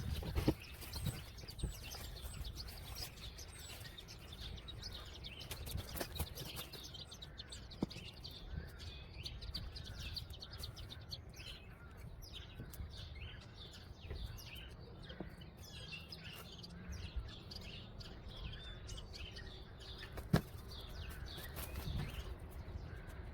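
Small birds chirping and twittering over a steady low rumble, with a few sharp knocks, the loudest about twenty seconds in.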